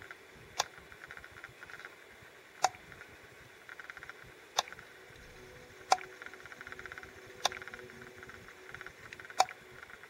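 Six sharp clicks, one every one and a half to two seconds, with short runs of faint, fast ticking between them.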